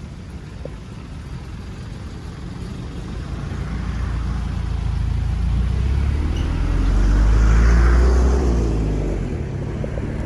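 A motor vehicle passing close by: its engine and road noise build over several seconds, are loudest about eight seconds in, then fade.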